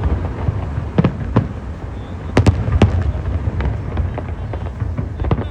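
New Year fireworks bursting: a string of sharp bangs at irregular intervals, several close together about two and a half seconds in, over a steady low rumble.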